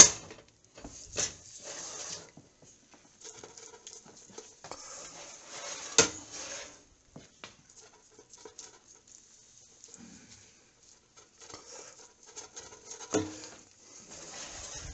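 Silicone basting brush dabbing and scraping as it is dipped in a ceramic bowl of spice paste and brushed over a whole chicken, with four sharp knocks of utensils against the bowl or basket: one at the very start, then about a second in, about midway, and near the end.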